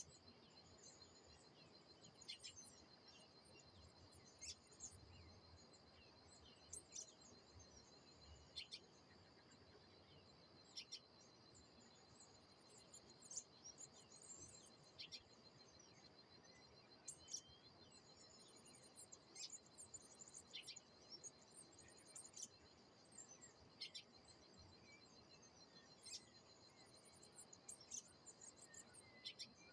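Faint birdsong: short, sharp chirps every second or two, with some higher twittering, over a steady high insect trill.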